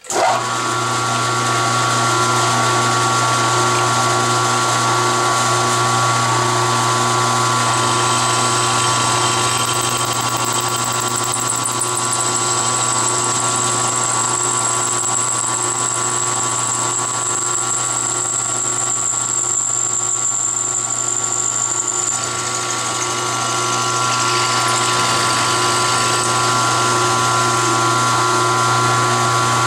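Benchtop milling machine switched on and running steadily, its four-flute end mill cutting into thin aluminium angle held in the vise. A steady motor hum with several higher tones, and a high whine that comes in about eight seconds in and fades out after about twenty seconds.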